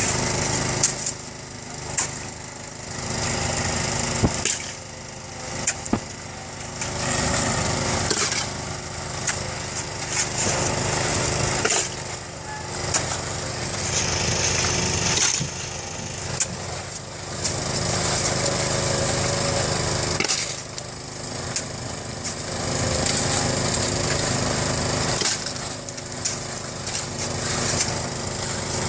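A small engine running steadily, with irregular knocks, clicks and scraping over it.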